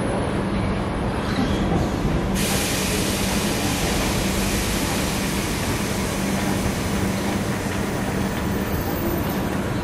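Vintage Tait electric train standing at a station platform, giving a steady low hum. A steady hiss comes in suddenly about two seconds in and keeps going.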